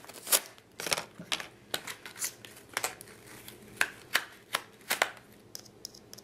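Plastic toy packaging being opened by hand: a string of short, sharp crinkles and rustles at an uneven pace.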